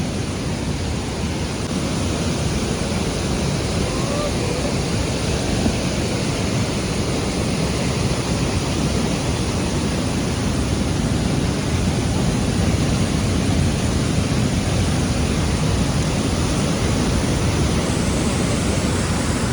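Steady roar of the Kaveri river's Hogenakkal waterfall heard from close by, a dense even rush of falling water heaviest in the low end.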